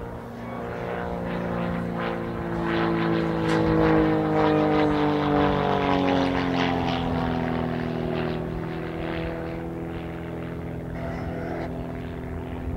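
Reynolds Wildcat Special aerobatic biplane's piston engine and propeller during an aerobatic display. It grows louder to a peak about four seconds in, then falls in pitch as the plane passes and eases off.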